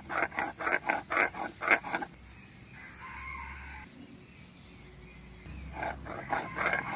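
Rhythmic scraping of a stone grinder on a flat grinding stone (shil-nora), grinding ginger into paste at about four strokes a second. It pauses for a few seconds in the middle and starts again near the end.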